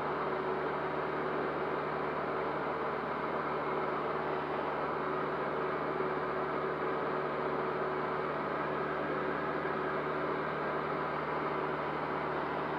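Cessna 152's four-cylinder Lycoming O-235 engine and propeller running steadily in flight, heard from inside the cockpit as an even drone with a constant low hum.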